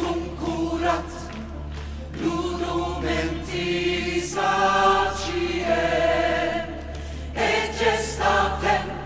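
Choral music: a choir singing held chords, swelling louder around the middle.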